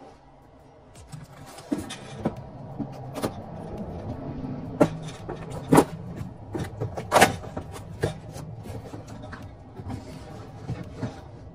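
Handling noise: a fleece sleeve rubbing over the phone's microphone, with a string of knocks and clatters from cardboard boxes and spray paint cans being moved, the two loudest about halfway through.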